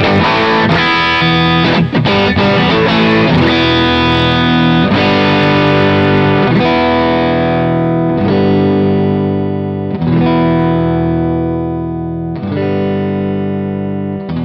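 Amplified electric guitar, a pine-bodied Telecaster-style guitar with a humbucker and single-coil Häussel pickups: quick picked chords for the first several seconds, then single chords struck about every two seconds and left to ring.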